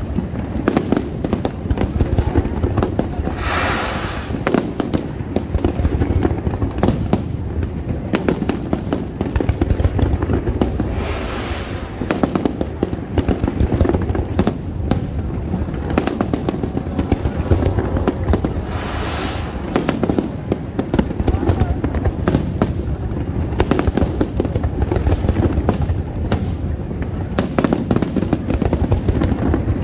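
Aerial fireworks display: a rapid, continuous barrage of bangs and booms over a steady low rumble. Brief hissing stretches come about 4, 11 and 19 seconds in.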